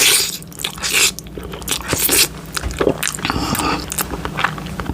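Close-miked mouth sounds of eating a mouthful of spicy ramen noodles with runny-yolked fried egg: wet biting and chewing, with many quick smacking clicks and a few louder noisy bursts.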